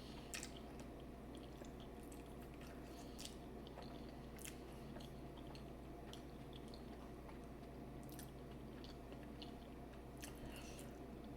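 A person chewing food close to the microphone, with scattered soft mouth clicks and smacks over a low steady hum.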